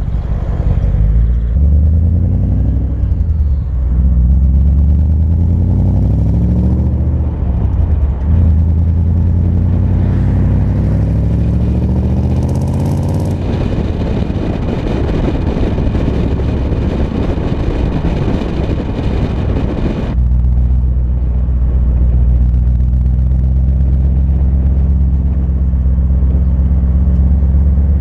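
BMW E39 M5's 4.9-litre V8 through an RP Motorsport custom exhaust, loud, pulling away and accelerating through the gears: the pitch rises three times, dropping at each upshift. Around the middle a burst of wind and road noise covers it, and in the last third the engine runs steadily at low revs.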